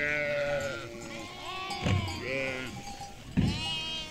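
Livestock bleating: several drawn-out calls one after another, some overlapping, with two dull thumps about two and three and a half seconds in.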